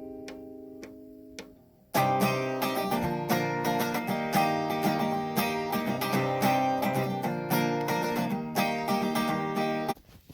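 Acoustic guitar being played: a chord rings and dies away, then about two seconds in the plucked and strummed chords start again and carry on until they cut off suddenly near the end.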